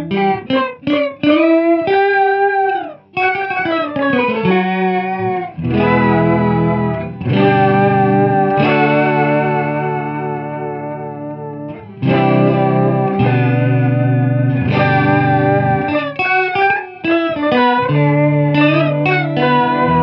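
Electric guitar played through an Electro-Harmonix Intelligent Harmony Machine adding an octave-up voice, into a Deluxe Memory Man delay in vibrato mode. It plays quick single notes with pitch bends in the first few seconds, then held chords with a wavering pitch, then more picked notes.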